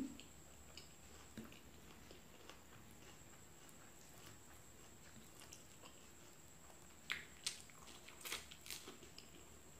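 Quiet chewing with faint mouth clicks, then, about seven seconds in, a handful of sharp crunches as a piece of fried chicken is bitten and chewed.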